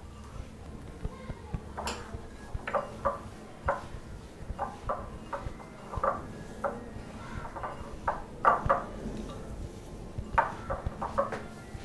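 Irregular light clinks and knocks of a hand against a glass mixing bowl as besan ladoo mixture is worked by hand with ghee, over a faint low hum.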